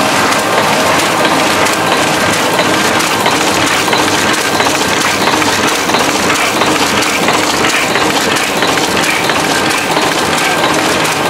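1991 Heidelberg GTO-VP 52+ multi-unit sheet-fed offset press running: a steady, fast mechanical clatter with a faint steady high tone under it.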